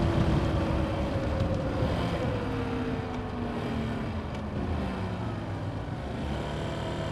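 Motorcycle engine heard from the rider's seat while slowing, its pitch falling over the first few seconds and then holding steady, with wind and road noise.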